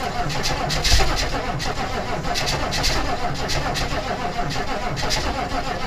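1996 Chevrolet K1500's 6.5-litre turbo diesel running rough through a straight-piped exhaust during a freezing cold start, with uneven clattering knocks. It is a hard start on bad glow plugs, with thick smoke from the exhaust.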